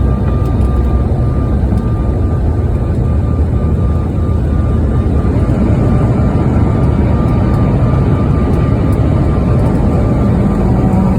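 Airliner cabin noise: a steady loud rumble of engines and rushing air, with a faint steady high tone running through it.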